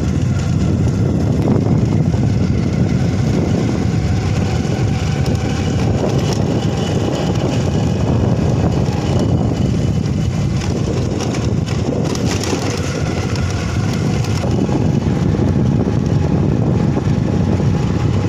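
Motorcycle running while being ridden over a rough dirt and gravel road: a steady, loud engine and road rumble.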